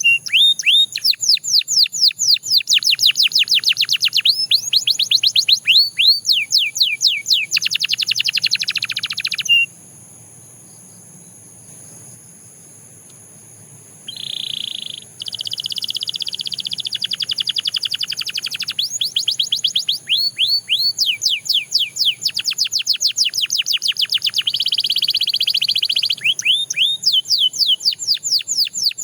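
Domestic canary singing fast trills of rapidly repeated downward-sweeping notes. The song breaks off for a few seconds about a third of the way through, resumes with a short buzzy roll, and goes on into further trills.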